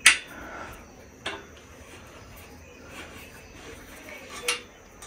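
Sharp metal clicks of an Allen key and bolt against a steel bed frame as the key is fitted and turned. The loudest click comes at the start, a lighter one a little over a second in and another about four and a half seconds in, with soft handling in between.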